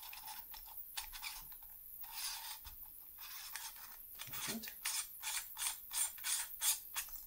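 Metal telescope adapter rings of an off-axis guider clicking as they are turned and fitted together by hand. Scattered ticks at first, then a quick run of about eight clicks, roughly three a second, from about two-thirds of the way in.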